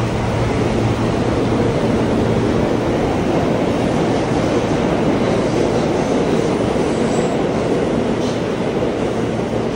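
Steady rumble of a New York City Subway train in an underground station, with a faint brief high squeal about seven seconds in.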